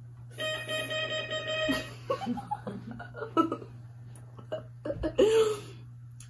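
A steady held tone for about a second, then a girl giggling and laughing in short bursts while eating mochi ice cream.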